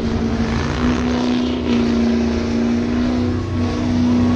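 Pickup truck engine revving hard and held at a steady high pitch, with a few slight dips, while the rear tyres spin in a smoky burnout.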